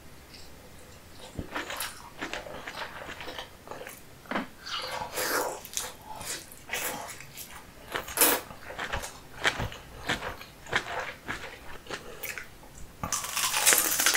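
Close-miked eating sounds: wet chewing and bites of sauce-drenched king crab meat, a steady string of short clicks and smacks. A louder, denser stretch of biting comes near the end.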